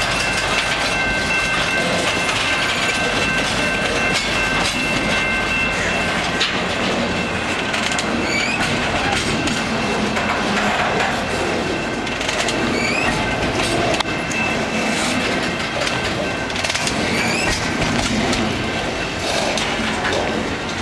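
CN double-stack intermodal freight train's well cars rolling past close by: a steady clatter and rumble of steel wheels over the rail joints. A thin, steady high ringing tone sits on top for the first six seconds or so.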